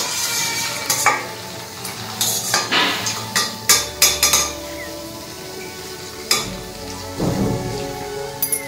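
Hot groundnut oil sizzling in a steel kadai as fried shakarpara pieces are lifted out. A perforated steel skimmer scrapes and clinks against the pan several times, most often in the first half.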